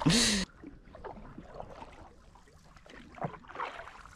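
A short breathy laugh, then a canoe gliding on calm lake water with a few soft paddle splashes.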